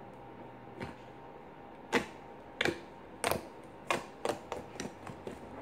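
Hands squeezing and slapping slime against the table, making about ten irregular sharp clicks and pops that come faster in the second half.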